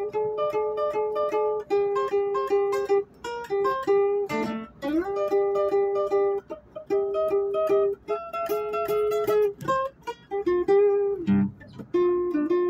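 Music: a plucked string instrument playing a melody of short, repeated notes.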